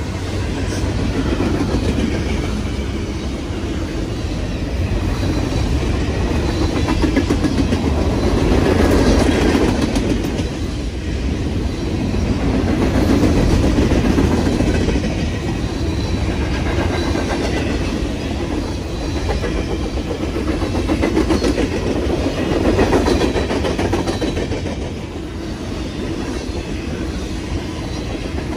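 Freight train rolling past at close range: a steady rumble of wheels on rail with clattering that swells and fades every few seconds.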